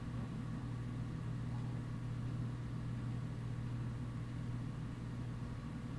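A steady low hum with faint hiss underneath, the quiet background drone of a tense scene in a short horror film.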